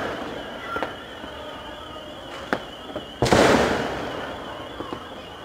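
Fireworks and firecrackers going off over a city: a few scattered sharp cracks, then a big bang about three seconds in whose echo fades away over the next two seconds.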